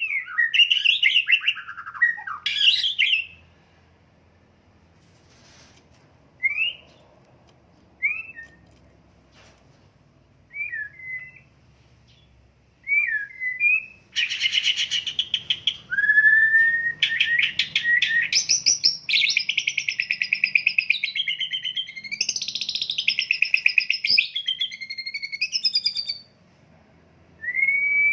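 White-rumped shama (murai batu) singing: loud whistled phrases, then a few short, separated whistles, then from about halfway a long run of loud, rapid trills and chattering phrases.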